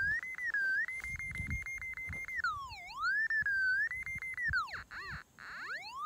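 Magnex 120LW magnetic locator's audio tone, gliding up and down in pitch. It holds high with a rapid pulsing for the first couple of seconds, dips sharply about halfway through, then nearly fades out near the end before rising again. The swinging tone comes from re-zeroing the instrument over ground that the operator calls so mineralized it won't stay at zero.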